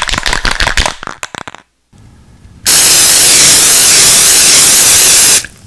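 Aerosol spray-paint can being shaken, its mixing ball rattling rapidly, thinning out and stopping about a second and a half in. After a short pause, a loud, steady spray hiss runs for nearly three seconds and cuts off near the end.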